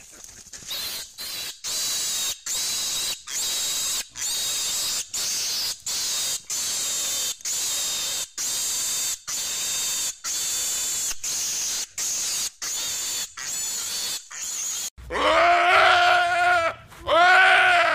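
An animal's short, high-pitched cries repeated evenly, about one and a half a second, then two loud, falling bleats from a deer pinned under a bear near the end.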